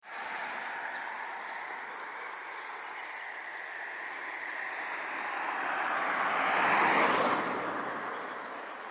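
A road vehicle passing by: its noise swells as it approaches, is loudest about seven seconds in, then fades as it moves away.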